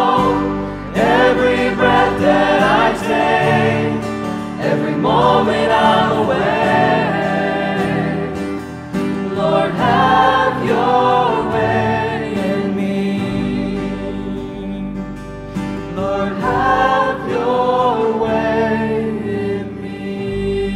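Music: a choir singing a gospel-style worship song over instrumental backing.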